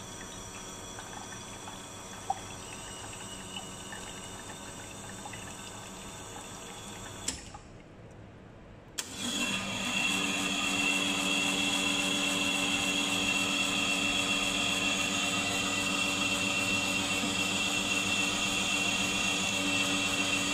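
Eagle One Prima espresso machine refilling its emptied boiler: a quieter steady hum, a click about seven seconds in and a short lull. A second click comes about nine seconds in, and then a louder, steady pump hum runs as water is drawn into the boiler.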